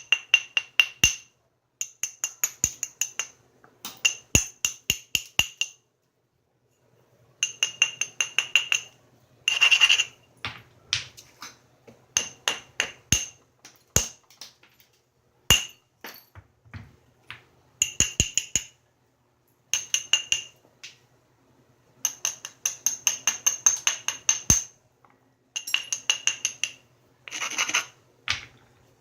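Flintknapping: runs of quick, light taps of a stone hammer or abrader along the edge of the stone being worked, with the stone ringing a clear high tone. The taps come in bursts of a second or two with short pauses, and a few single sharper knocks come between them, the sound of cleaning up and preparing the edge.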